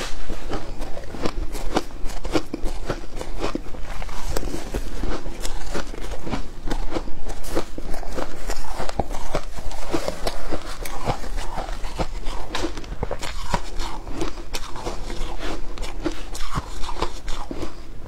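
Close-up crunching and chewing of mouthfuls of shaved ice, a dense run of sharp crackling crunches, with a metal spoon scooping through the shaved ice in a glass bowl partway through.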